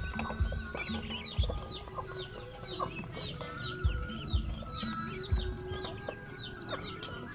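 A flock of poultry calling busily at feeding time: many short, high, falling peeps overlapping one another. Dull low thumps come every second or so.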